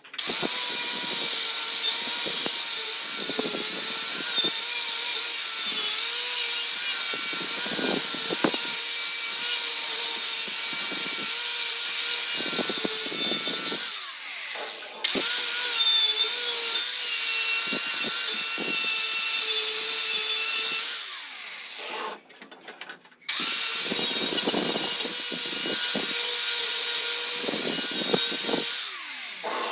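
Electric angle grinder running with an abrasive disc against the steel of a crowbar: a steady motor whine over a gritty grinding noise. It cuts out briefly about halfway through and again about three quarters of the way through, then runs on.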